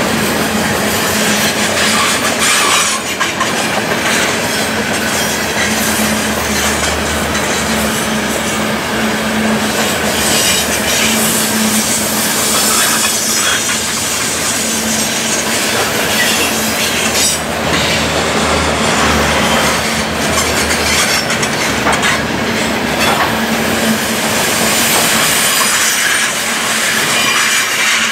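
Freight train of covered hopper cars rolling past at speed: a steady rumble and clatter of steel wheels on the rails, with wheel squeal from the curve.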